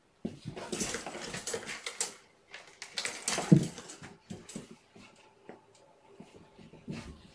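Kittens scampering and scrabbling, their paws and claws scratching and pattering in quick bursts, with a loud thud about three and a half seconds in.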